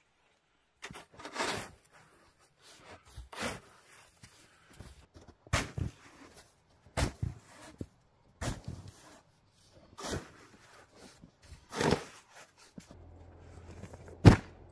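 Snow shovel scraping and scooping deep snow, one stroke every second and a half to two seconds. Near the end a low steady hum comes in, with one sharp knock, the loudest sound.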